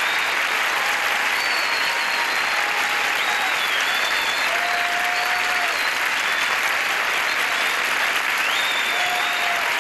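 Audience applauding steadily, with a few whistles and calls over the clapping.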